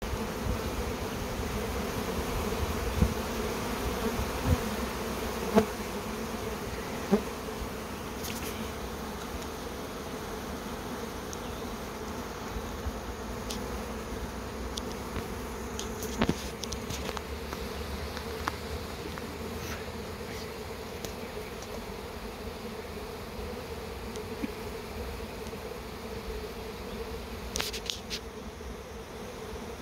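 Honeybee swarm issuing from its hive: the loud, steady buzz of masses of bees in flight, the old queen leaving with a large part of the colony. A few sharp knocks come in the first several seconds.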